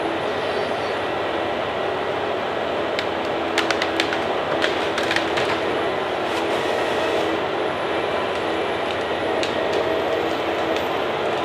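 Heavy forestry machine running steadily under load, an engine-and-hydraulics drone, with a scatter of sharp clicks and cracks about three to five seconds in and again near the end.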